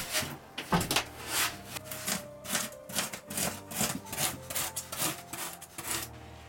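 A hand blade sawing back and forth through an extruded-polystyrene (Technoplex XPS) insulation board: quick rasping strokes, about three a second, that stop near the end.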